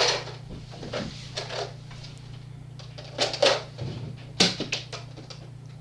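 A scatter of sharp plastic clacks and thuds from Nerf blasters being fired and handled, with darts or balls striking things, in a small room. About half a dozen knocks come spread unevenly across the few seconds, over a steady low hum.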